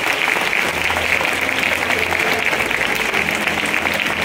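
Crowd applauding: a steady clatter of many hands clapping, with voices murmuring beneath.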